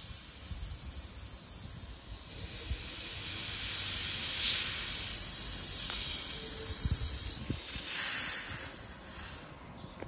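Compressed air hissing out through the valve stem of a duct-taped plastic bottle air tank as its pressure is released. The hiss swells and eases a few times, then dies away near the end as the bottle empties.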